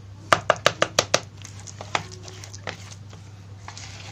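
Plastic spoon knocking against a plastic mixing bowl while stirring a thick bait dough: a quick run of about six taps about half a second in, then two single taps.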